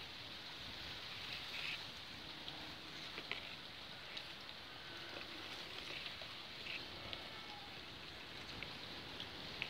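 Steady outdoor hiss with scattered faint ticks and rustles.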